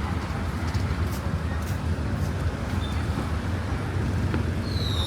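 Street traffic noise: a steady low rumble of passing vehicles, with a brief high squeal that falls in pitch near the end.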